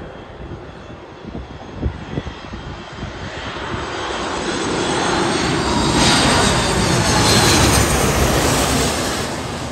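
Jet airliner passing low overhead: its engine noise swells from about three seconds in to a loud peak, then fades near the end.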